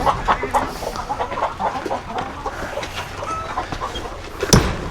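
Hens clucking in a henhouse, many short overlapping calls, with one sharp knock about four and a half seconds in.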